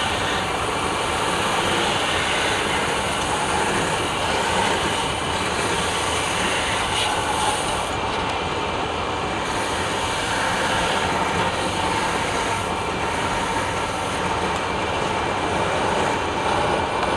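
A woodworking power tool running steadily, making a continuous mechanical whirring noise with no breaks.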